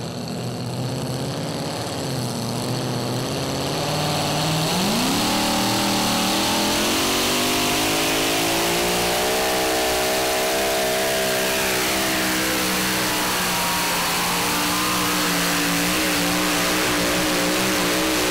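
Supercharged engine of a Chevrolet pickup pulling car running at low revs. About four and a half seconds in, the revs climb sharply, then hold high with a slight waver as it drags the weight sled down the track.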